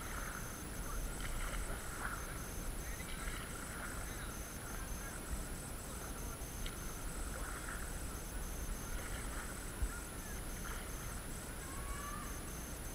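Quiet, steady water and wind noise around a stand-up paddleboard gliding on a pond, with a couple of light knocks, one about halfway through and one a few seconds later.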